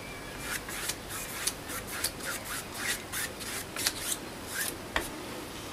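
Paintbrush dragging acrylic paint down a canvas in a run of quick, irregular strokes, about three a second, with a sharper tap near the end.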